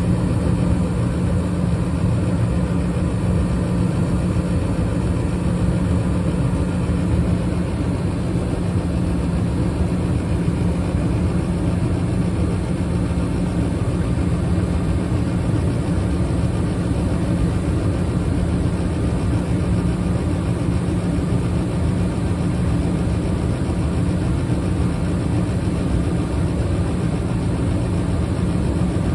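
Bryant gas furnace running with its burners lit: a steady rumble of flame and fan, with a constant low hum.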